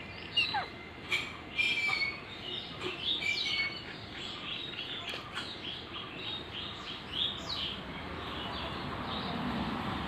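Rose-ringed parakeets chattering in short, sharp chirps and squawks, loudest in the first two seconds, then a run of quick, evenly spaced chirps about three a second. A vehicle's low rumble grows louder near the end.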